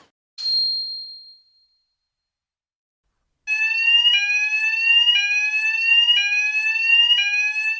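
A single high ding that fades over about a second, then, after a pause, an electronic alarm sound effect: a pitched tone that rises slowly and jumps back down about once a second, five times over.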